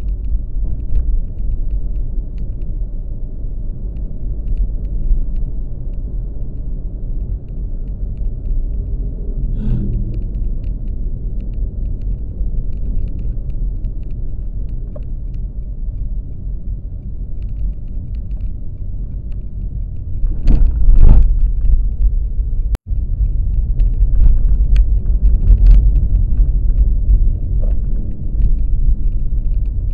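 Low, steady rumble of a vehicle on the move, which grows louder about twenty seconds in.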